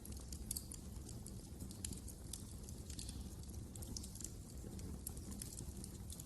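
Wood fire crackling in a fireplace: frequent small, irregular pops and snaps over a steady low rumble of the flames.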